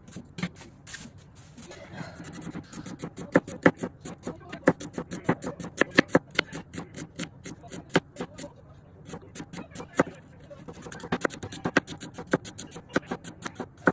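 Kitchen knife thinly slicing a red onion on a plastic cutting board: a quick series of crisp crunches and taps, several a second, as the blade cuts through and meets the board. The taps are sparse over the first couple of seconds, then come steadily.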